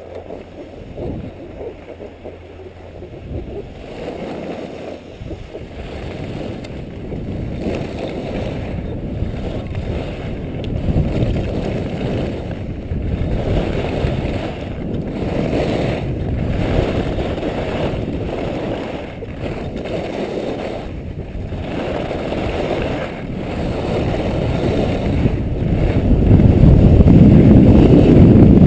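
Wind buffeting the microphone of a skier's action camera during a fast downhill run, mixed with the rush of skis on packed snow; it grows louder toward the end as speed builds.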